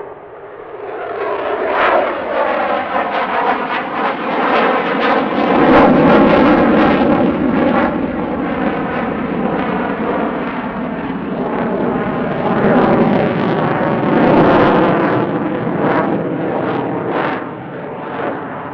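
Eurofighter Typhoon FGR4's twin EJ200 jet engines roaring through a display pass at full thrust. The noise builds over the first couple of seconds and swells twice, with sweeping rises and falls in pitch as the jet moves across.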